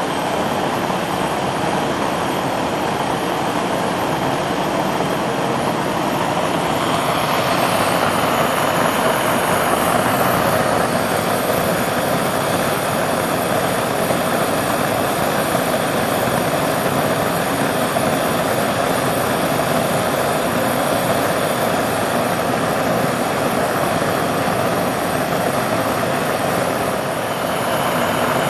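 Gas burner flame jet burning with a steady, loud rushing hiss, growing slightly louder about seven seconds in.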